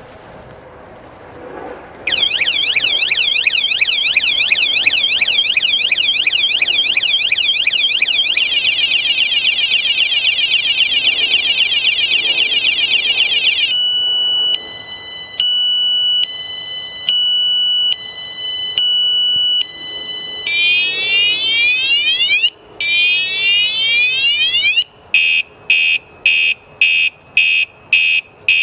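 Mengshen wireless motorcycle anti-theft alarm siren, loud, cycling through its tone patterns. About two seconds in, a fast high warble starts. This is followed by stepped tones that change about once a second, then repeated swooping sweeps, and near the end rapid on-off beeps at about two a second.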